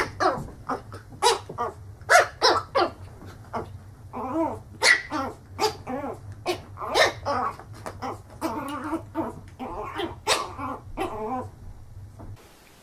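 Small fluffy puppy yapping in quick runs of short, high-pitched barks at its own reflection in a mirror. The barks stop about a second before the end.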